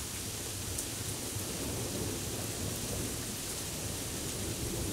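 Steady rain, with a low rumble of thunder rolling in about halfway through and growing louder toward the end.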